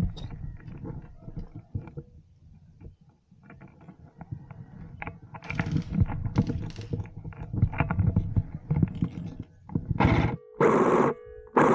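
Rustling, scraping and knocking of clothing and gear right against the microphone, with a low irregular rumble. Near the end come louder short bursts.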